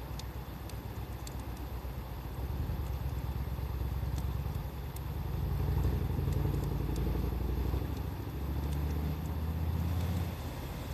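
Low engine rumble of a nearby motor vehicle, swelling and easing over several seconds, with the scattered sharp pops of a wood fire crackling.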